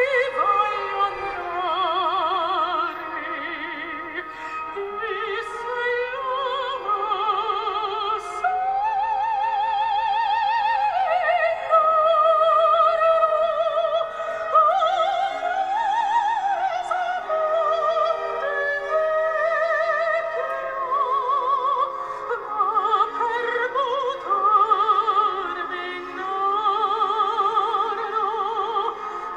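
Operatic singing with strong vibrato, played from an iPhone's speaker through a 3D-printed passive horn amplifier; the sound is thin in the bass.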